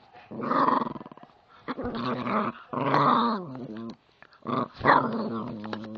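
Chihuahua puppy growling in play: four drawn-out growls with short gaps between them, the last one sliding down in pitch.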